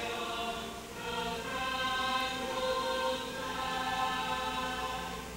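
Music of slow, held chords, the chord changing about a second in and again a little past the middle.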